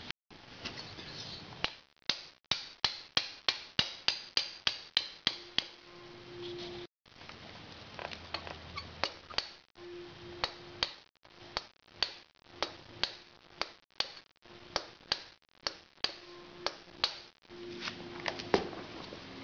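Light, sharp metal taps at about two a second, in several runs with short pauses between them: a freezer-chilled gudgeon pin being tapped into a Harley-Davidson Evo Sportster piston with a drift.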